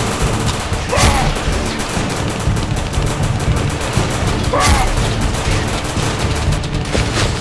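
Rapid, continuous rifle fire from several guns, the shots overlapping in a firefight, with two louder sweeping sounds about a second in and a little past halfway.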